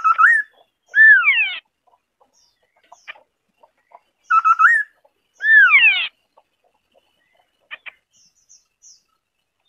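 White-browed scimitar-babbler singing: its phrase comes twice, each a quick burst of short notes followed by a whistle that rises slightly and then slides down.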